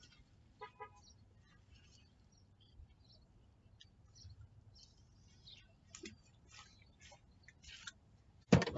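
Faint bird chirps and scattered small clicks from handling the spinning reel and rod, then a loud bump near the end.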